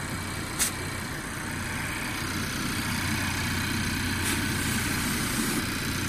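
Honda car engine idling steadily with the air conditioning on, heard from beside the open engine bay. A single sharp click about half a second in.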